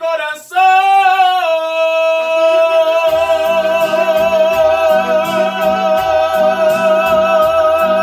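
A man singing a long held note with vibrato, over a Korg Pa600 arranger keyboard. Low bass notes from the keyboard come in under the voice about three seconds in.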